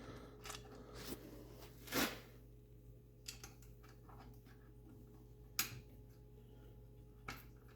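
Faint, scattered clicks and clinks of Allen-headed bolts and thick fender washers being handled and set onto a billet fuel rail, the sharpest about two seconds in and again about five and a half seconds in.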